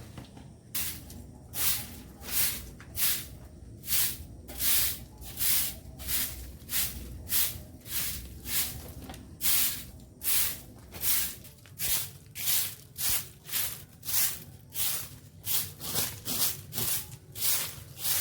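Rhythmic brushing strokes, about one and a half a second: stiff bristles sweeping or scrubbing across a hard surface.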